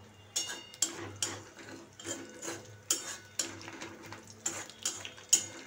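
Spatula scraping and knocking against a kadai while stirring whole spices and slit green chillies in hot oil: a string of irregular scrapes and clicks, a couple a second.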